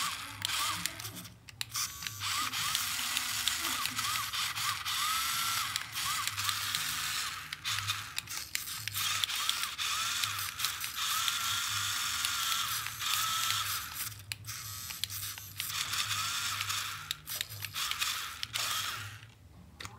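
Toy 1:16 scale RC rock crawler's small electric motors and plastic gearboxes whirring as its wheels spin freely with the car held off the ground. The whine rises and falls as the throttle is worked, and it stops briefly several times.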